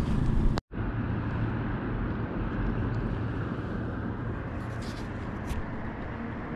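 Steady low rumble and hiss of wind buffeting the microphone outdoors. The sound cuts out completely for a moment about half a second in.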